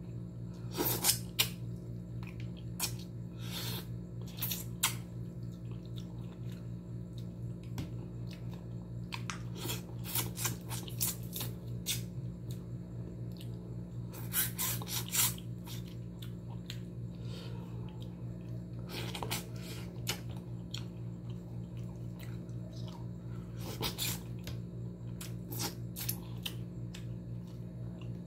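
Close-up eating sounds of a person eating fish and rice by hand: scattered short clicks and smacks of chewing and of fingers picking at the plate, over a steady low hum.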